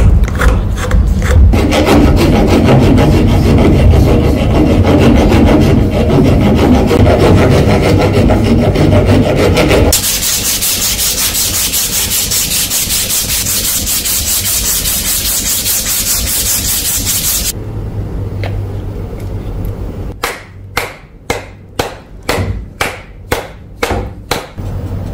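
Wood being worked by hand for a new hammer handle. First comes a loud, dense rubbing noise for several seconds, then a higher, steadier hiss. Near the end there are about ten even back-and-forth strokes on the wood, roughly two a second.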